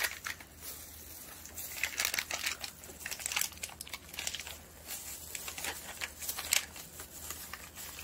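Plastic wrapper of a duck-meat pet energy bar crinkling and tearing in irregular bursts as gloved hands peel it open, with one sharper crinkle about six and a half seconds in.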